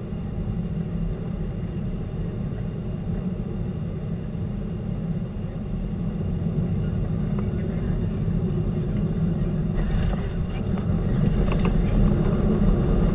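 Cabin noise in a Boeing 737-800 on final approach over the runway: a steady low rumble of the CFM56 engines and airflow that grows louder over the last few seconds. About ten seconds in, sharp rattling jolts come through as the plane touches down.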